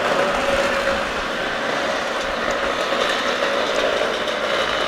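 A stream of motor scooters' small engines buzzing past in traffic, along with cars, as a steady mixed engine and road noise.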